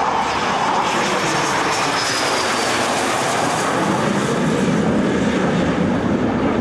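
Jet engine of a low-flying jet aircraft passing overhead with its landing gear down on approach, a steady loud rush with a faint whine that falls in pitch about two seconds in as it passes.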